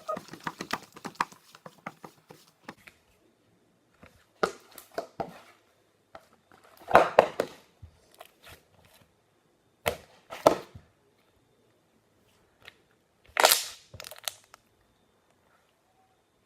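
Slime being squeezed and pressed by hand, popping its trapped air in sharp clicks and crackling bursts: quick small pops at first, then separate louder bursts every few seconds.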